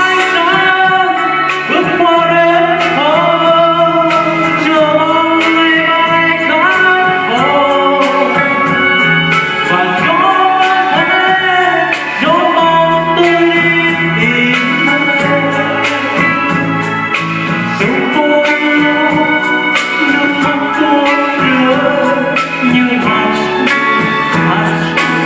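Music from a Vietnamese ballad: a gliding melody line over guitar accompaniment with a steady beat.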